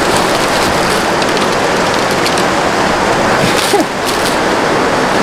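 Steady rushing of a rocky mountain creek, a loud even noise, with a few brief rustles of footsteps in dry leaves.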